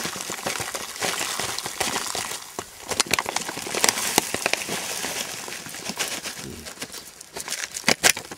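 Dry freeze-dried chicken pieces being shaken out of a crinkly foil-lined Mountain House pouch into a metal pot of water: the pouch rustles and crinkles throughout over a rapid patter and clicking of falling pieces, with a few sharper clicks near the end.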